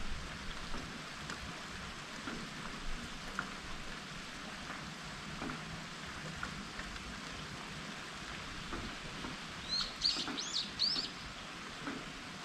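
Steady rain hiss with scattered raindrop taps. Near the end a bird gives a quick run of about five high chirps.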